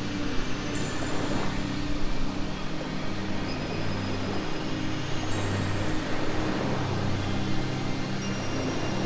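Ambient meditation music: a low sustained drone with slowly shifting held notes.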